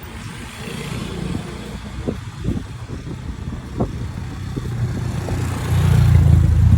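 Street traffic with a motor vehicle engine running, growing louder about six seconds in as a vehicle comes close.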